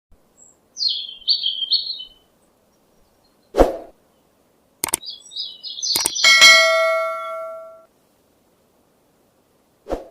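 Bird chirps, then several sharp knocks, one followed by a metallic clang that rings on for over a second before dying away.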